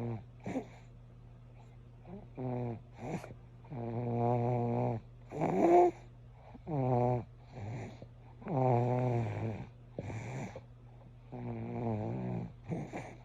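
Snoring: a string of separate snores, one every second or two, many with a clear pitched tone that slides in pitch, and quiet gaps between breaths.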